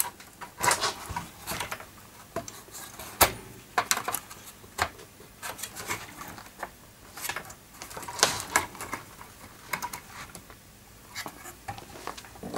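Irregular clicks and knocks of a graphics card being handled, pulled from one expansion slot of a bare motherboard and pushed into another.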